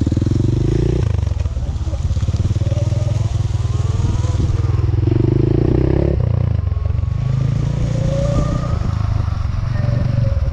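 Motorcycle engine running while riding, the revs rising and falling several times.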